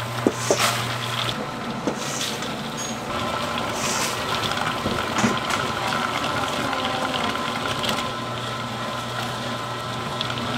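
Electric stirring kettle's paddle churning sticky oranda gangjeong pieces and nuts in syrup: a steady machine hum under a continuous swishing of the pieces tumbling against the steel bowl.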